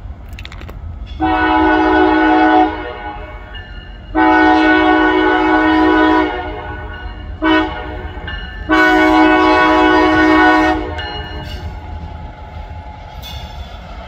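Diesel locomotive horn on a CSX EMD Geep blowing the grade-crossing signal: two long blasts, one short, and a final long blast, each a chord of several pitched tones. Wind rumbles on the microphone underneath.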